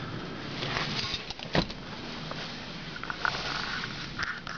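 Rustling and knocking from someone moving about inside a small plane's cabin while handling the camera, with one sharp knock about a second and a half in and a few lighter clicks near the end.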